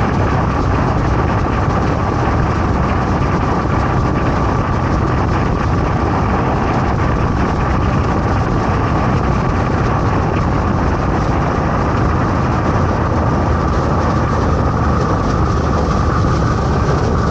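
Motorcycle riding at a steady speed: engine and road noise without a break, with a steady high whine, inside an enclosed wooden covered bridge.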